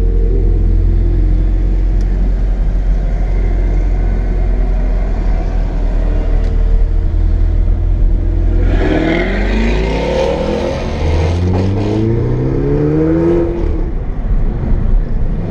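Car engine accelerating hard over a steady low road and engine rumble. About halfway in its pitch climbs several times in a row, each rise dropping back as it shifts up a gear.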